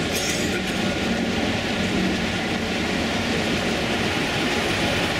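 Model diesel locomotive hauling tank wagons along a model railway layout: a steady running noise over exhibition-hall background noise.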